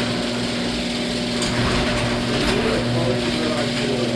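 A steady low electrical or mechanical hum with a hiss over it, with a few light knocks about one and a half and two and a half seconds in.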